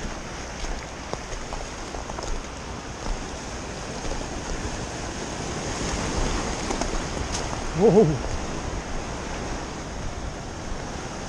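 Surf washing against rocky shore, a steady rushing noise with a low rumble of wind on the microphone. A short wavering cry rises out of it about eight seconds in.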